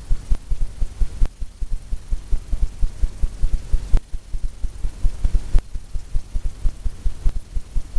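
Paintbrush strokes on a stretched canvas: rapid, uneven low thumps as the blender brush works wet oil paint, with a few sharper clicks about a second, four seconds and five and a half seconds in.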